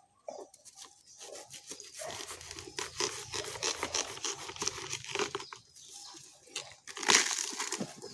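Banana trunk being torn and bitten apart, heard as irregular ripping and crackling with a loud rip about seven seconds in.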